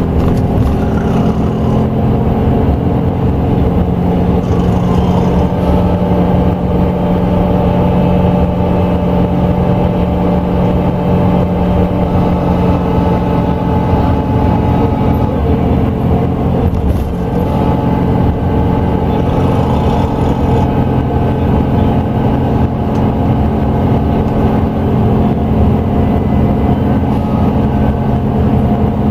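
Scania K380EB4X2LI coach's engine running under way: a steady, loud drone that rises in pitch over the first few seconds and dips briefly a little past halfway.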